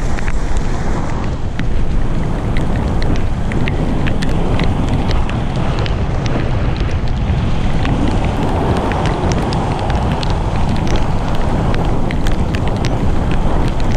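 Wind buffeting the microphone of a camera on a mountain bike speeding downhill on a wet gravel road, over the hiss and crunch of the tyres. Frequent sharp clicks and rattles come from the bike and stones under the wheels.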